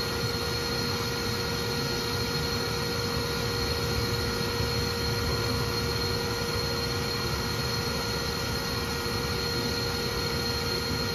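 Bee vacuum running steadily through its corrugated hose, a constant motor whine over a rush of air.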